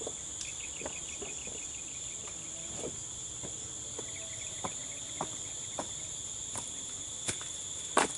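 Steady high-pitched insect chorus, two even buzzing tones, with brief trilled chirps about half a second in and again about four seconds in. Scattered light knocks of footsteps on loose wooden planks sound through it.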